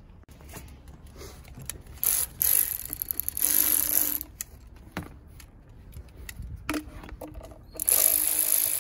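Electric ratchet spinning a socket on the screw of a worm-drive hose clamp, tightening it onto a silicone intercooler hose. It runs in several bursts, the longest about a second and a half.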